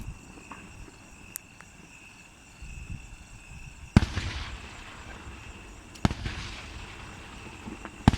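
Aerial firework shells bursting overhead: a few small pops, then three loud bangs about two seconds apart, each trailing off in a rumbling crackle.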